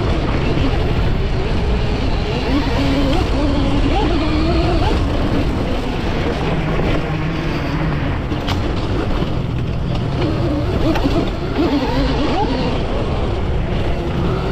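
Riding noise from an electric dirt bike on a trail, heard from on board. Wind and rattling of the chassis and chain fill the sound, and the whine of the QS138 brushless motor and its gear reduction rises and falls with the throttle.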